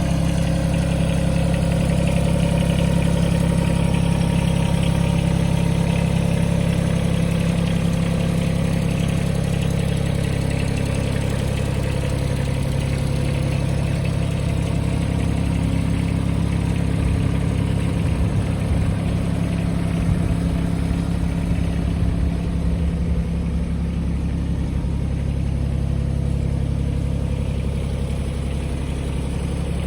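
John Deere X495 ride-on lawnmower engine running steadily at idle.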